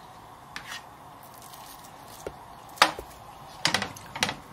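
A spoon scooping soft homemade soybean paste out of a stainless steel container and stirring it into a wok of water, with soft squishes and a few sharp clicks of the spoon against the metal, the loudest about three seconds in and several more near the end, over a faint steady background noise.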